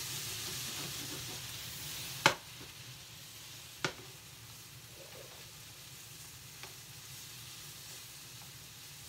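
Sweet-and-sour pork ingredients sizzling as they are stir-fried in a frying pan. A utensil knocks sharply against the pan about two seconds in, which is the loudest sound, and again a second and a half later. The sizzle eases after the first knock.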